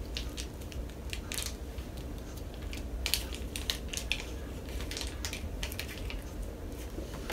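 A thin plastic packet of slime crinkling and crackling in irregular clicks as the slime is squeezed out of it.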